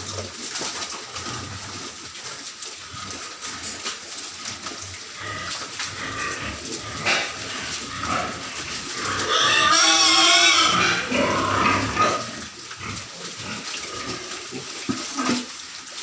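A pen of piglets grunting and jostling as they feed on green leaves, with many small clicks and knocks from hooves and mouths on the concrete floor. About nine seconds in, one piglet gives a loud, wavering squeal lasting about two seconds.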